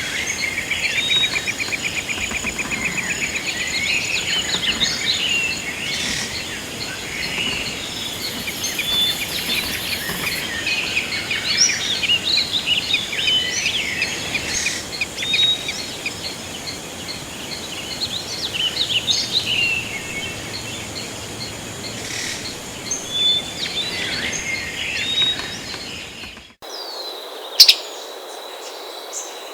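A mixed chorus of several birds singing and calling: overlapping chirps, trills and short whistles. About 26 seconds in, it cuts off abruptly to a steady high-pitched tone, broken by a sharp loud click.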